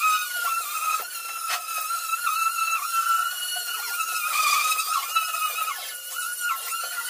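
Two angle grinders fitted with wire cup brushes scouring rust off a steel truck bed floor. There is a steady high motor whine that sags in pitch again and again as the brushes bite into the metal, over the scratchy hiss of wire on steel.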